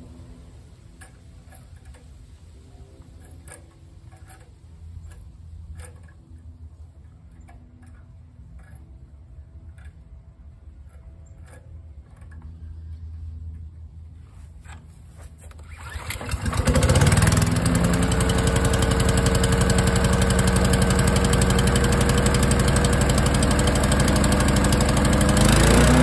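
The small four-stroke gas engine of a new mini wood chipper starting up for the first time: a few faint clicks from handling the controls, then about two-thirds of the way through the engine catches and runs steadily. Near the end its pitch rises briefly.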